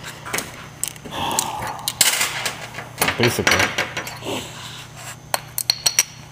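Metal parts clinking and knocking together as an aluminium clutch master cylinder adapter plate and its assembly are picked up and handled, with a quick run of sharp clicks near the end.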